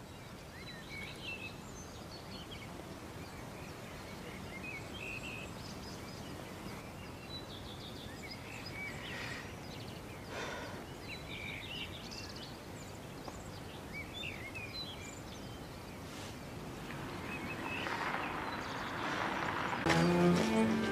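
Songbirds chirping and twittering in short scattered calls over a steady outdoor background hiss. Music comes in near the end.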